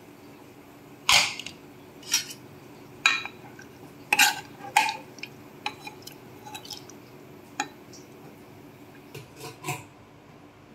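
Metal ladle clinking against the side of a pressure cooker pot while cooked mutton pieces are turned and lifted out, a sharp clink roughly once a second at uneven intervals, over a faint steady hum.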